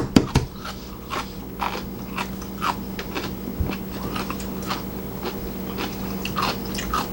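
Close-up chewing and biting of food, with frequent short, sharp mouth clicks and wet smacks, over a steady low hum.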